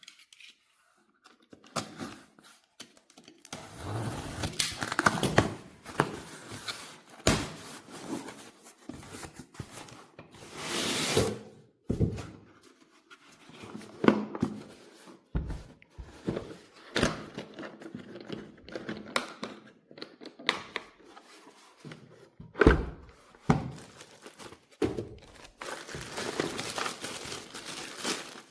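Irregular handling noises: knocks and thunks with crinkling and rustling of packaging or plastic, and a short burst of noise about eleven seconds in.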